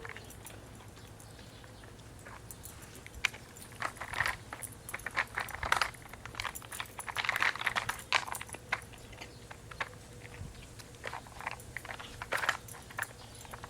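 A dog working a treat puzzle toy, knocking and flipping its pieces: irregular clicks and clatters in bunches, busiest in the middle.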